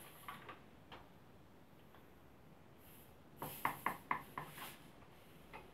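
Faint hiss and fizz of carbon dioxide escaping past the loosened lid of an over-carbonated bottle of homemade ginger beer as the pressure is let out slowly, with a cluster of small clicks and short hissing spurts about three and a half seconds in.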